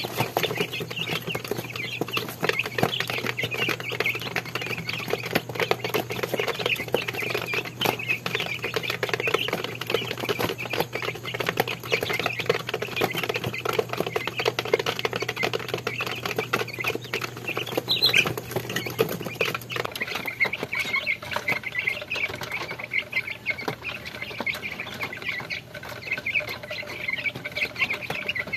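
A brood of young Rhode Island Red and Black Australorp chicks peeping continuously while pecking fast at the feed in a plastic feeder tray, many small ticks over the chorus. A steady low hum underneath stops about two-thirds of the way through.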